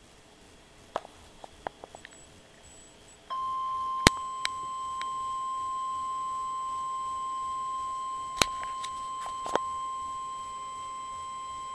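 NOAA Weather Radio 1050 Hz warning alarm tone: one steady, unbroken high beep that starts suddenly about three seconds in, after faint radio hiss, with a few sharp static crackles over it. It is the alert that heralds a severe thunderstorm warning.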